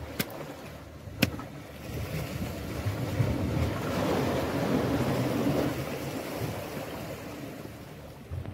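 Sea waves washing against the shore rocks: a surge that swells and then fades over several seconds. Two sharp clicks come within the first second and a half.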